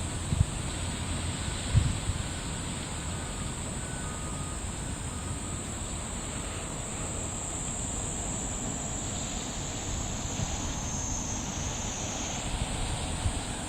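Outdoor ambience: wind on the microphone with a steady high insect drone, which shifts slightly near the end.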